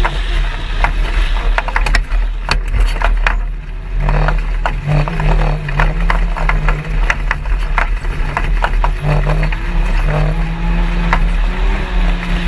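Side-by-side UTV engine running hard at steady speed over desert sand, its pitch stepping up and down slightly a few times, over a heavy low rumble. Frequent sharp clicks and knocks come through as the machine runs over the bumps.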